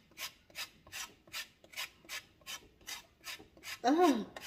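A lemon scraped back and forth on a flat metal hand grater, zesting it, in even rasping strokes about two or three a second. Near the end a brief voiced exclamation, the loudest sound here, cuts across the scraping.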